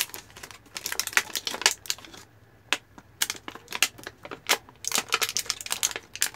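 Clear plastic blister tray and plastic bag crinkling and crackling in the hands, heard as quick irregular clicks, with a sparser stretch about two to three seconds in.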